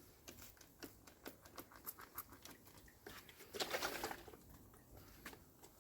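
Faint clicking of a lanolin spray bottle's trigger being worked, with one short hissing spray burst about three and a half seconds in; the nozzle is broken and sprays poorly.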